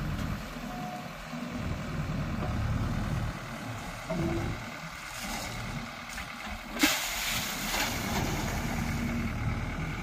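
JCB 3DX backhoe loader's diesel engine running steadily as the backhoe arm digs and lifts a bucket of mud. A sharp knock about seven seconds in is followed by a brief rushing noise.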